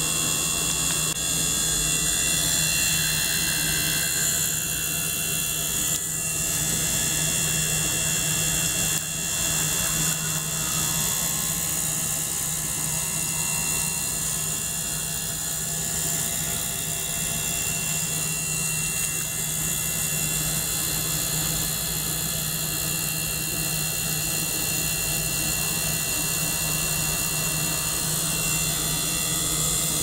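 Small ultrasonic cleaner running with a small liquid-circulation pump: a steady whine and hiss over a low hum, unchanging throughout.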